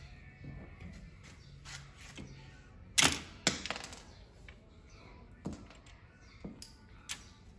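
Clicks and knocks from a copier's metal-and-plastic transfer belt unit being handled and shifted on a worktable. There is a sharp knock about three seconds in and another half a second later, then a few lighter clicks.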